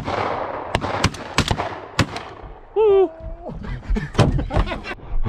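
A shotgun blast right at the start, followed by four or five quieter sharp cracks over the next two seconds.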